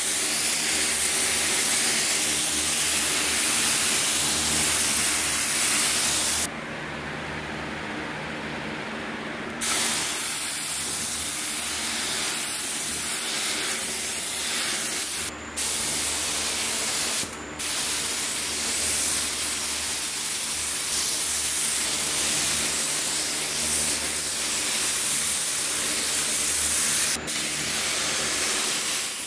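HVLP paint spray gun hissing as it sprays clear coat mixed with metal flake, in long passes. The hiss stops for about three seconds a quarter of the way in and cuts out briefly a few more times, over a steady low hum.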